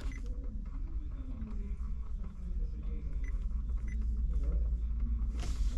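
Low, steady rumble inside a car cabin, with a few faint short beeps partway through.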